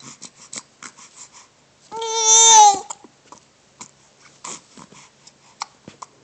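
Baby making small wet mouth clicks and smacks while blowing spit bubbles, with one loud, drawn-out vocal squeal about two seconds in.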